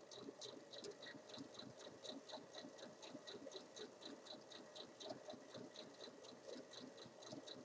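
Domestic electric sewing machine stitching steadily at a slow speed, a regular ticking of the needle at about five stitches a second over a low motor hum, as it sews a seam through two layers of fabric.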